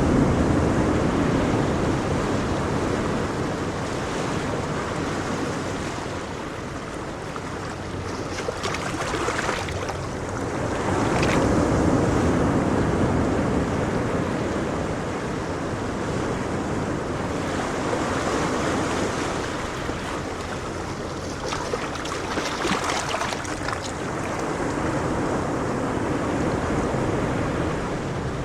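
Ocean waves washing onto a shore, swelling and ebbing every several seconds, with some wind on the microphone.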